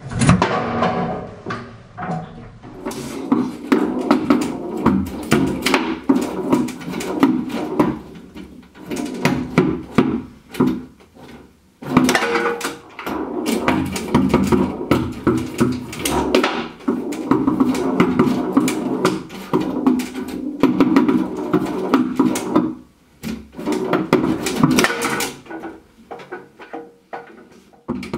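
Foosball table in rapid play: the hard ball and plastic players clacking, and the steel rods rattling and knocking as they are spun and shoved. It comes as a dense run of sharp knocks that breaks off for a moment a few times.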